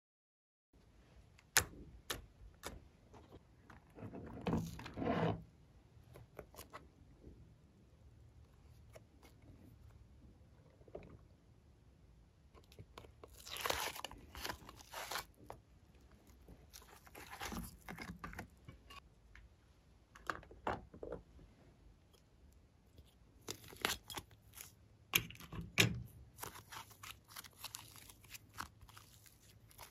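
Close handling noises: scattered clicks and taps, with several louder rustling, scraping bursts as hands lift and move a glitter-coated cardboard cutout on a glass tray. Near the end, fluffy slime is pulled and stretched.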